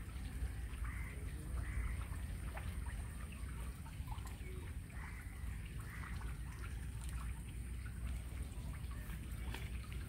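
Water trickling and pouring steadily, under a low rumble, with short chirps about once a second.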